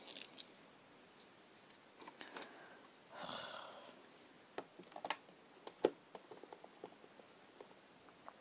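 Light clicks and taps of craft materials and tools being handled, with a brief rustle about three seconds in.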